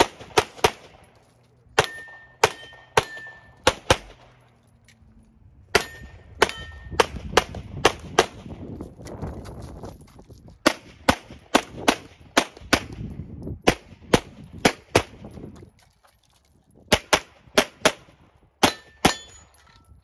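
Pistol fired in quick pairs and strings during a USPSA Single Stack stage run, with short pauses between the strings as the shooter moves between positions. Several shots are followed by a brief metallic ring from steel targets being hit.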